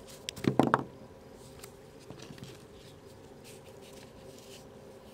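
Firework fountains being handled and set down side by side: a quick cluster of knocks and clicks about half a second in, then faint handling rustles.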